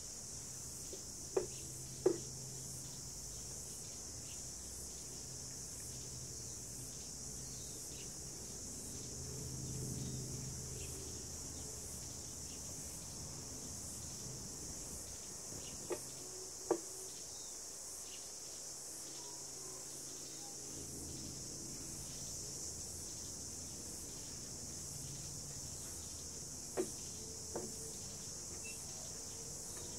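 Steady high-pitched chirring of insects, with three pairs of short, sharp taps spread through it.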